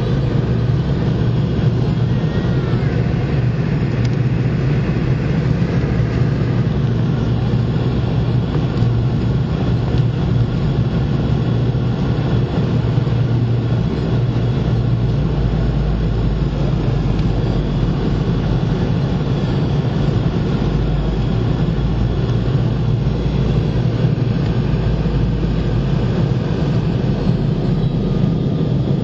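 Steady cabin noise inside a Boeing 717 airliner: a constant low drone from its rear-mounted Rolls-Royce BR715 engines and the airflow.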